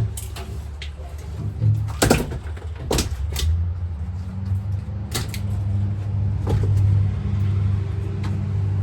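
Several sharp, irregularly spaced wooden knocks from firewood being split and handled, the loudest right at the start, over a tractor engine running low and steady that gets louder about three and a half seconds in.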